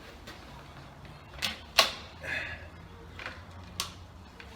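A few sharp clicks and clacks, about four, the loudest near two seconds in, as a jump pack's clamps and leads are handled and clipped on. A faint low hum runs underneath.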